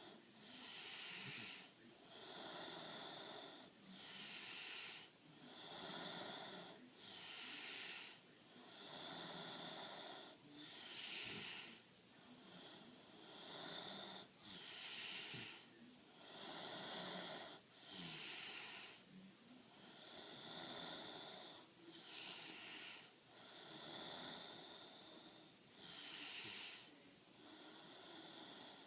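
A young girl snoring in her sleep: a rasping breath in, then one out, each about a second long, repeating steadily about every three to four seconds.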